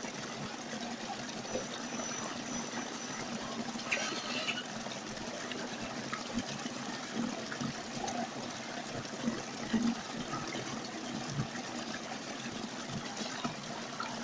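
Small stream splashing down a short cascade over rocks: a steady rush of water.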